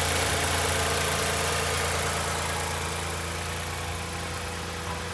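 Toyota Highlander 3.5 L V6 (D-4S) engine idling steadily, shortly after being started. It grows slightly quieter toward the end.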